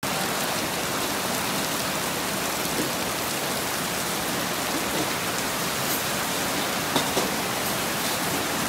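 Heavy rain pouring steadily onto a wet street, with a couple of louder taps from drops close by about seven seconds in.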